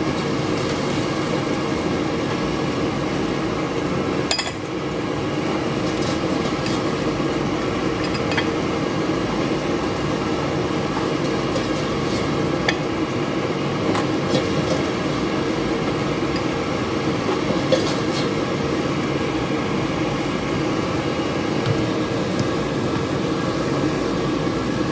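A plastic spatula scraping and clicking against an air fryer's perforated nonstick basket as cooked kababs are lifted out, a scattered handful of sharp clicks over a steady fan hum.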